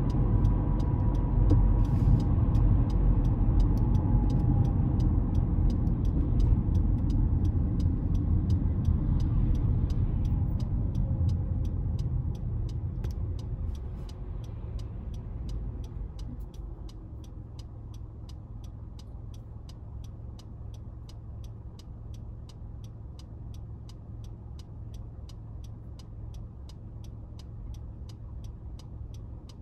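Honda CR-V heard from inside the cabin: road and engine noise fade over about five seconds as the car slows to a stop, leaving a steady low idle hum. A turn-signal indicator ticks evenly, about two to three clicks a second, throughout.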